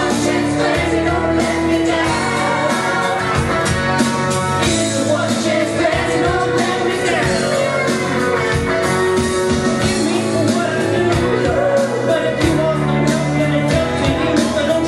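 Singing into a microphone over rock-and-roll backing music, continuous and steady in level.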